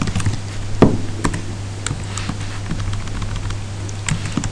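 Computer keyboard keystrokes, a scattering of irregular key clicks with a louder one about a second in, over a steady low hum.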